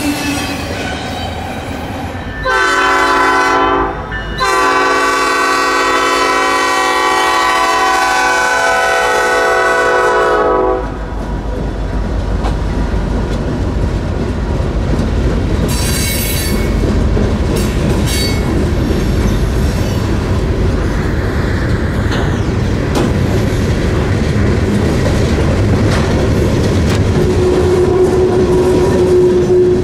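Freight locomotive air horn: a short blast, then a long blast of about six seconds, followed by the steady rumble and clickety-clack of the train's wheels passing, with a brief wheel squeal near the end.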